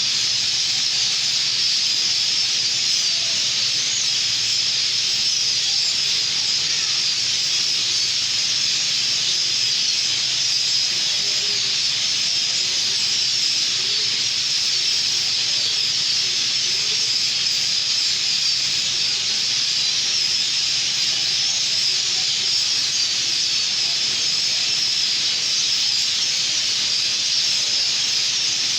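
A dense chorus of many birds chirping at once, blending into a steady, high wall of sound with no breaks.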